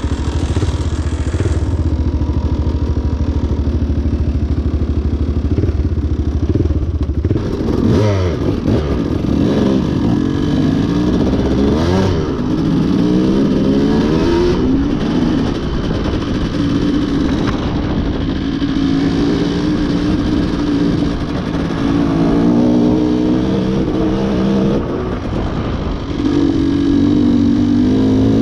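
Single-cylinder off-road motorcycle engine running steadily at low revs for the first several seconds. From about seven seconds in it revs up and down repeatedly as the bike rides off, its pitch rising and falling with each throttle change.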